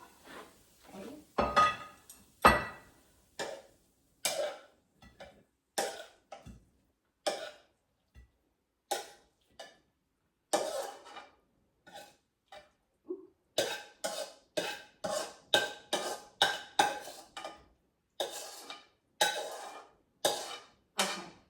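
A metal utensil scraping and knocking against the pan as stir-fried pork and cauliflower is scooped out onto a plate, in many short strokes that come faster in the second half.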